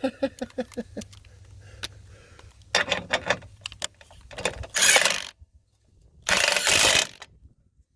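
Ratchet wrench turning a bolt: a run of quick clicks at the start, then three bursts of fast, dense clicking about a second long each.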